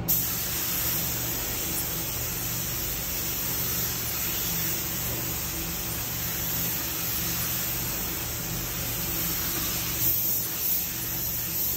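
Gravity-feed paint spray gun spraying topcoat: a steady hiss of compressed air and atomised paint, with a steady low hum beneath.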